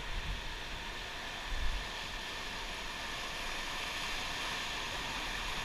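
Steady rushing of river water around a raft, with a brief low buffet about a second and a half in.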